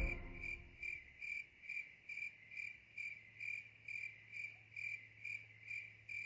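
A cricket chirping faintly in an even rhythm, about two high chirps a second.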